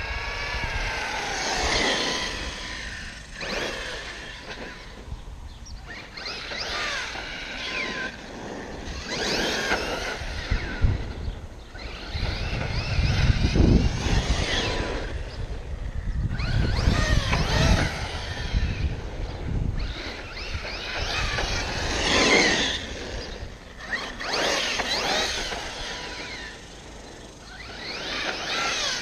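Arrma Kraton 6S RC monster truck's brushless motor whining in repeated bursts of throttle, its pitch rising and falling every couple of seconds. A low rumble joins in on the longest runs, about halfway through.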